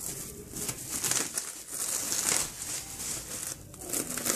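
Plastic cling film crinkling as it is handled and smoothed over a tray, a stream of irregular light crackles.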